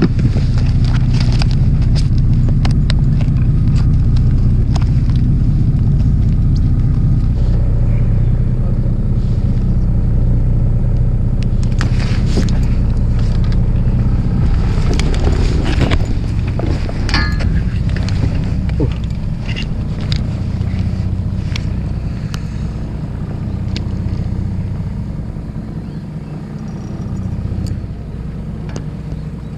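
Small fishing boat's engine running steadily at low speed, a low rumble that eases somewhat near the end. Scattered clicks and knocks on top in the first half.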